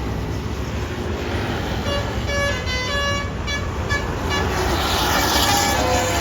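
Bus's basuri telolet musical horn playing a quick tune of short notes at changing pitch, starting about two seconds in, over the low rumble of the bus engine. A burst of hiss rises near the end.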